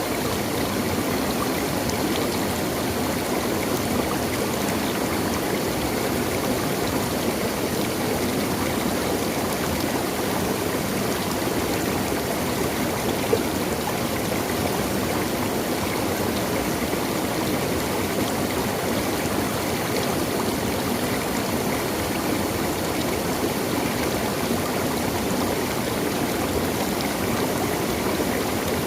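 A natural stream flowing steadily: an even, unbroken rush of water.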